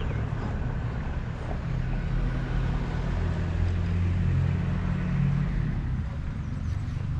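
A steady low engine hum, as of a motor vehicle running, swelling slightly in the middle and easing again.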